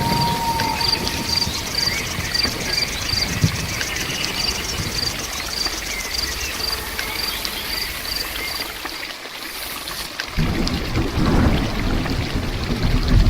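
Steady rain falling, with an insect chirping in a regular pulse about two to three times a second for most of the time. About ten seconds in the chirping stops and a heavier, deeper rush of water comes in.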